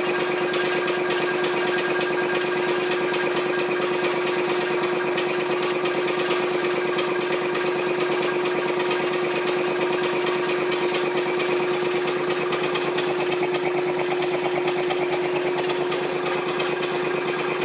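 1948 Brunner air compressor running steadily, its 2 horsepower AC electric motor driving the pump, with a constant hum and a fast, even pulsing.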